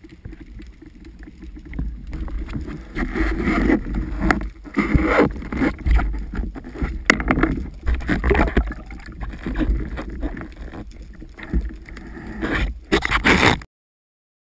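Water sloshing and splashing against an underwater camera housing on a speargun close to the surface, over a steady low rumble, in uneven swells. It cuts off suddenly near the end.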